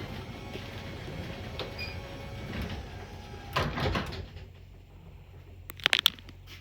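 Garage door running up on a Genie 3055 belt-drive opener: a fairly quiet, steady running sound that ends with a brief clatter about four seconds in as the door stops. A few sharp clicks follow near the end.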